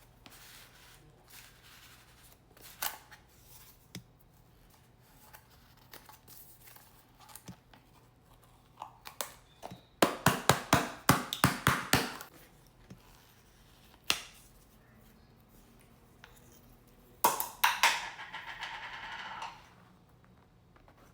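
Cornstarch being squeezed, giving off crunchy squeaks: a fast run of sharp squeaks and crackles about halfway in, then a longer squeaky crunch near the end. Faint scattered creaks and clicks come between them.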